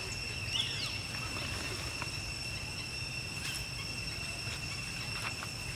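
Steady, high-pitched insect drone on two pitches, over a low rumble, with scattered small clicks and rustles and a brief high squeak about half a second in.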